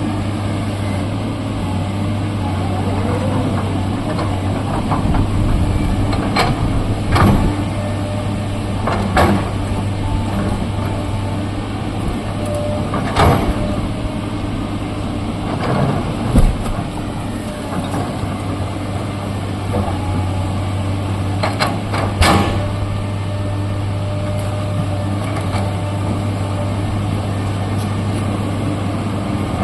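Excavator's diesel engine running steadily, with about half a dozen sharp knocks as the machine works at a large boulder; the loudest knock comes about halfway through.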